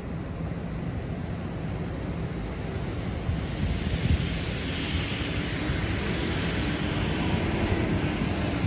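Wind buffeting the microphone over a steady low rumble, with a hiss that grows stronger from about three seconds in. A faint engine drone sits under it in the second half.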